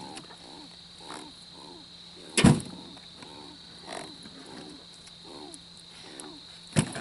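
An animal's repeated short calls, each falling in pitch, about one a second, over a steady high insect drone. Two loud knocks break in, one a little before the middle and one near the end.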